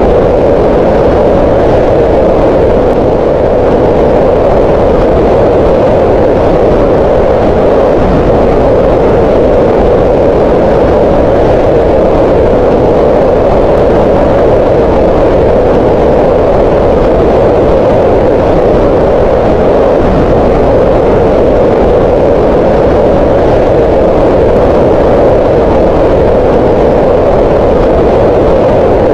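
Green noise: a loud, steady, unchanging hiss with its energy gathered in the middle range around 500 Hz.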